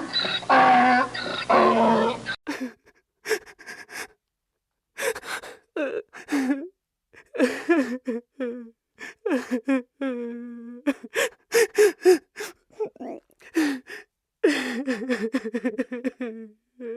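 Human crying: a sustained wailing cry that cuts off about two seconds in, then sobbing in short gasping breaths and broken whimpers.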